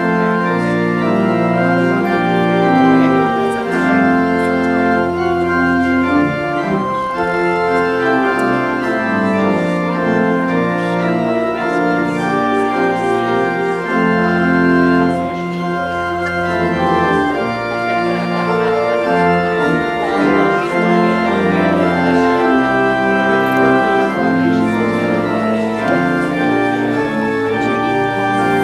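Church organ playing a slow postlude: held chords that change every second or so over a sustained bass line.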